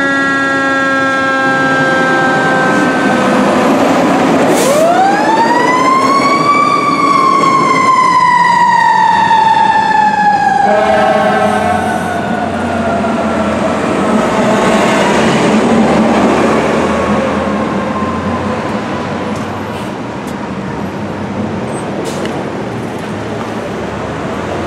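A 2014 KME Severe Service fire engine's siren: it winds down at the start, rises steeply to a high wail about four seconds in, then slowly winds down again over the next ten seconds or so. Underneath it all is a low, steady rumble of engine and traffic.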